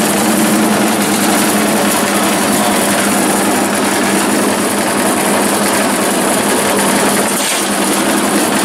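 Commercial bakery bread slicer running with its rows of reciprocating saw blades cutting through a loaf. A loud, even mechanical noise over a steady low hum.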